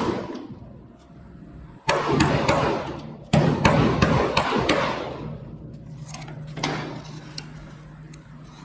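Hammer tapping on the steel edge of a car body panel to bump a low spot out and true the door gap. There is a cluster of sharp metallic taps about two seconds in, a longer run of taps a little later, and a few lighter taps near the end.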